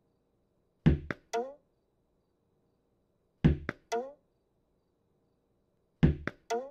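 Tennis ball thrown against a wall again and again. Three times it goes two quick knocks and a third bounce with a falling tone, repeating about every two and a half seconds.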